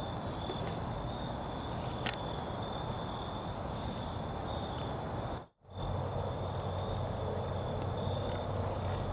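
Night insects trilling steadily in a high pitch, over low rustling noise. There is a single sharp click about two seconds in, and the sound briefly cuts out a little past halfway.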